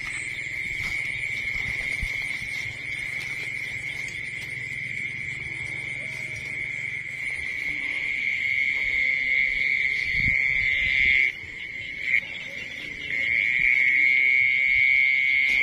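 An insect trilling in one continuous high-pitched note, breaking off briefly about eleven seconds in and then coming back louder.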